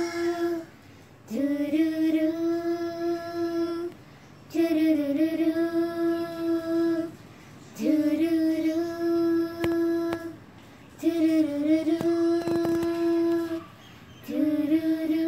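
Girls singing a slow phrase of long held notes, each about two and a half seconds, with a short breath between them and a slide up into most notes.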